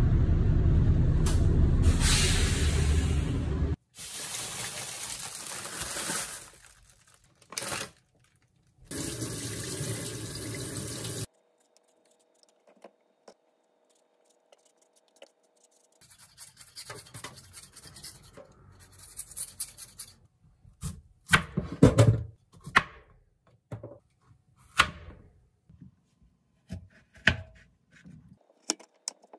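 Kitchen tap running in two short spells, then a carrot being peeled and cut with a kitchen knife on a plastic cutting board: a soft scraping, then a string of sharp, irregular knocks of the blade on the board.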